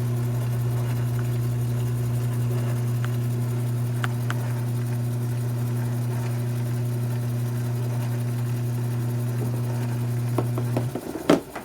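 Mini lathe's electric motor running with a steady hum, then switched off about eleven seconds in, followed by a sharp knock or two.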